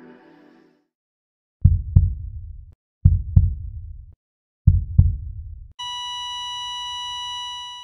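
Heartbeat sound effect: three double thumps about a second and a half apart. It is followed by a steady high electronic beep held for about two seconds, like a heart monitor flatlining.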